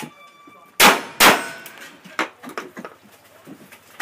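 Two gunshots from a cowboy action shooter's long gun, a little under half a second apart, followed about a second later by a few lighter metallic clanks.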